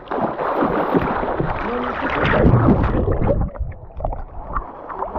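Water splashing and churning as people swim, loudest in the first half, with brief voices.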